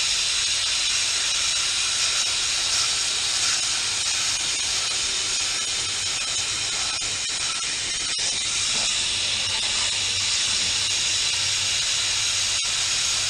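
Steady hiss of water spraying onto a condenser coil, rinsing dirty coil cleaner out of the fins, with a low steady hum underneath.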